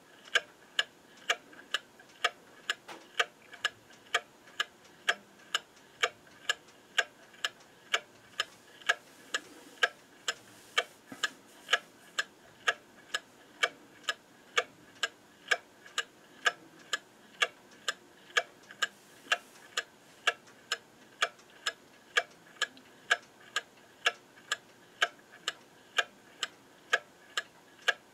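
Welch, Spring & Co. Patti VP brass clock movement ticking steadily, its escapement clicking about twice a second.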